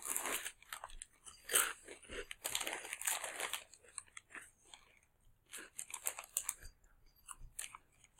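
A person chewing and crunching food close to the microphone, in irregular bursts with a couple of short pauses.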